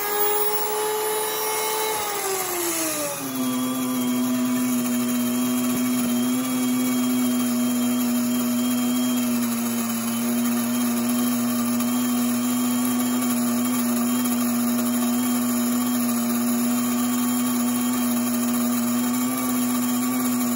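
WonderMill electric grain mill running at full speed with a loud, high motor whine. About two to three seconds in, the pitch drops and settles lower, as the wheat berries are poured into the hopper and load the motor. It then holds a steady whine while grinding the wheat into flour.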